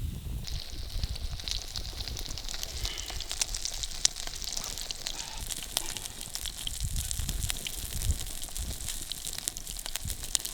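Food frying in a pan: a steady sizzling hiss full of small crackles, starting about half a second in, over a low rumble.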